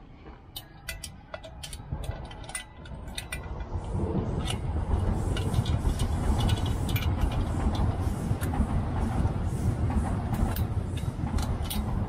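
Sharp metal clicks as a padlock is handled and fitted to the hasp at the base of a steel parking bollard. From about four seconds in, a nearby road vehicle's engine rumble swells and holds, louder than the clicks.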